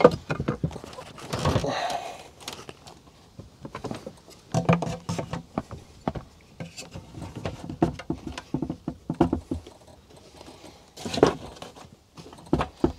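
Irregular knocks, clicks and rustles of wooden sticks and wedges being handled and pushed into place around a propped-up scooter in the back of an SUV, starting with a sharp knock.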